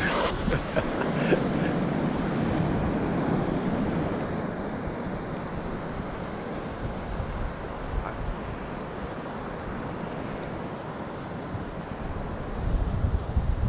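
Sea water sloshing and lapping against a kayak's hull, with a few paddle splashes in the first second or so. Wind rumbles on the microphone throughout, gusting harder near the end.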